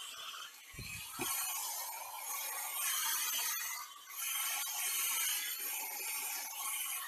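Hand-held BaByliss Pro hair dryer blowing, its rushing air swelling and fading as it is moved around the head. Two short low thuds about a second in.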